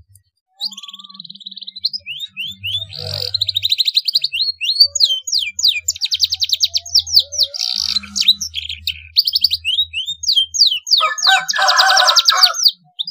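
Domestic canary singing a fast, varied song of trills and quick rising and falling whistles, with phrases learned from a blackthroat (yellow-rumped seedeater). It ends in a harsher, buzzy rattle that cuts off suddenly near the end.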